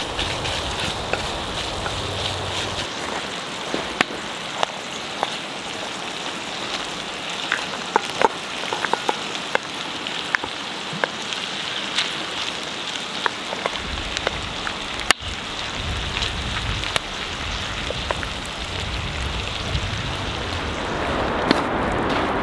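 Ground meat sizzling in a cast-iron Dutch oven over a wood fire: a steady hiss dotted with sharp crackling pops. Near the end a river's rushing flow rises in.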